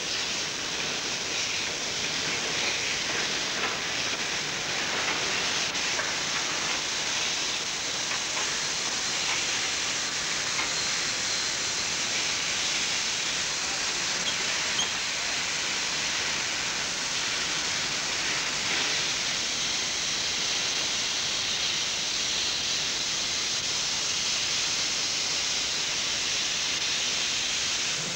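Steady hiss of steam escaping from a South African Railways class 15F steam locomotive, even and unbroken.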